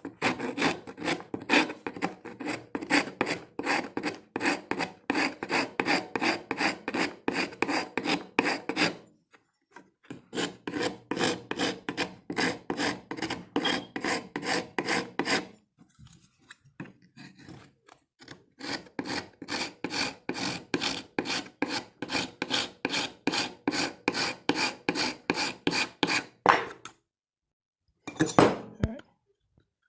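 Wooden axe handle being shaped with a file to refit the axe head: quick back-and-forth strokes, about three to four a second, in three long runs with short pauses between, and a brief burst of strokes near the end.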